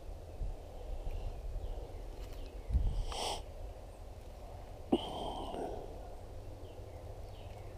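Outdoor river-bank ambience: a steady low rumble of wind on the microphone, broken by two short noises about three and five seconds in.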